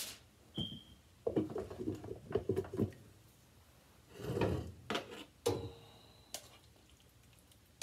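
Dishes and kitchen utensils being handled: a run of quick knocks and clinks, a short swell of noise about four seconds in, and a sharper knock that rings briefly a little later.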